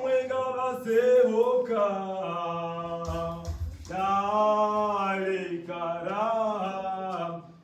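A choir singing a cappella in long held phrases, a low sustained note under a moving melody, with a brief breath break about three seconds in.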